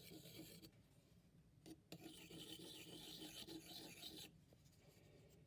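Steel scraper blade rubbed back and forth on a fine sharpening stone, a faint rasping scrape. There are two spells of honing, one at the start and a longer one from about two seconds in to past four, with a pause and a couple of light clicks between. The blade's duller side is being honed to a sharp edge.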